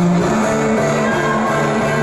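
Music playing loud, with a pulsing bass line that moves to a new note just after the start.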